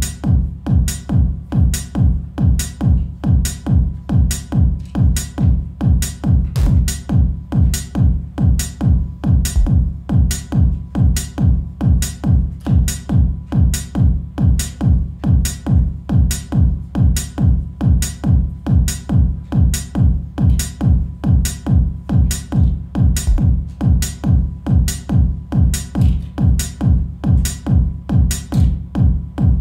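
Hardware techno jam: a drum machine playing a steady kick on every beat, about two beats a second, under a thick, continuous synthesizer bass line.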